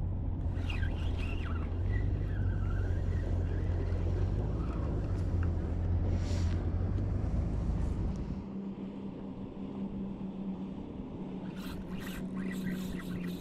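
A steady low engine drone that gives way about eight seconds in to a steadier, higher hum, with a few quick clicks near the end.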